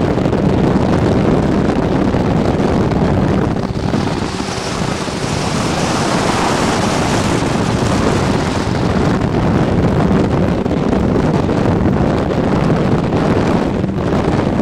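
A 50 hp Johnson outboard motor runs steadily as the speedboat cruises, with wind buffeting the microphone and water rushing past the hull. From about four seconds in to about nine, the rush of wind and water grows louder and hissier.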